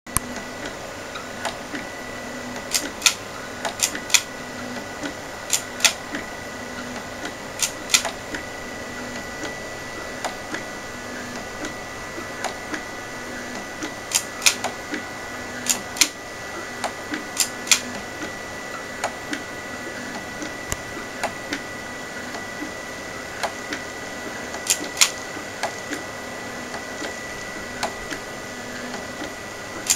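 MakerBot Thing-O-Matic 3D printer running a print: its stepper motors whir with a steady high whine, broken by sharp, irregular clicks and ticks, some in quick pairs, as the print head and platform move.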